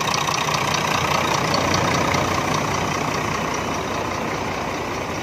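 Turbocharged Weichai diesel engine of a bus chassis idling steadily, with a fast, even clatter; it grows a little quieter after about three and a half seconds.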